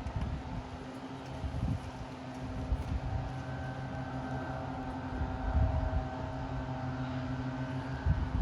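Strong wind buffeting the microphone in low rumbles that swell and fade, over a steady low mechanical hum.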